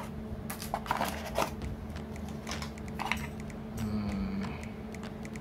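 Cardboard packaging handled by hand: a scattered series of light clicks, taps and rustles as the box is held and a small USB cable is taken out of it.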